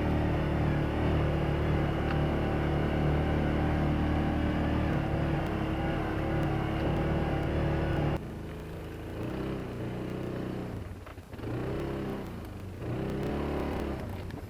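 A steady low drone, then an abrupt change about eight seconds in to a motor vehicle's engine rising and falling in pitch as it speeds up and eases off.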